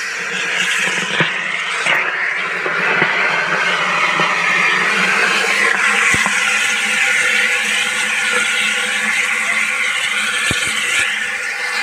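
A house fire burning close by: a loud, steady rush of noise with scattered sharp crackles and pops.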